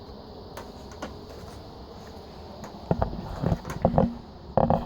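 Plastic handling sounds as a slit PVC pipe clamp is worked over polyfilm on a PVC frame: faint clicks at first, then from about three seconds in a run of louder knocks and rustles, the loudest near the end.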